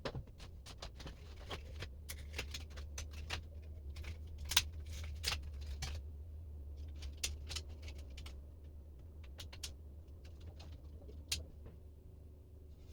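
Irregular light clicks and taps from laptop parts and tools being handled during reassembly, over a steady low hum. A sharper click comes about four and a half seconds in and another near the end.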